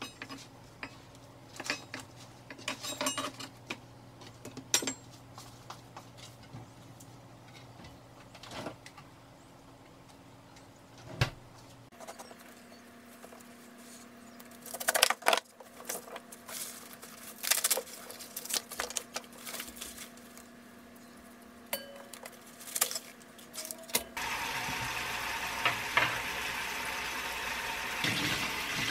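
A kitchen knife cutting through green onion stalks onto a plastic cutting board: scattered sharp knocks, with quieter handling of the stalks between them. Near the end a tap starts running steadily over the cut onions in a metal bowl.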